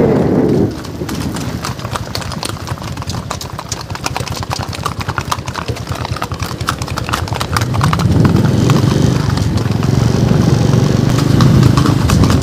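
Hooves of several horses clip-clopping on a paved road, a steady run of overlapping hoof strikes. A low rumble builds up about eight seconds in.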